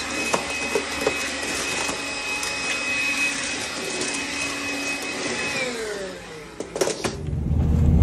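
Stick vacuum cleaner running with a steady high whine. About six seconds in it is switched off and the motor winds down with a falling pitch. Near the end come a few knocks, then a van's engine idling low.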